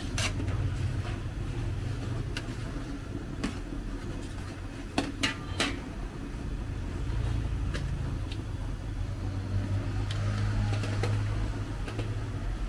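Metal spatulas scraping and clinking against an aluminium wok as a tomato sauce is stirred, a few sharp clinks standing out, the loudest two close together about five seconds in. Under it runs a steady low rumble.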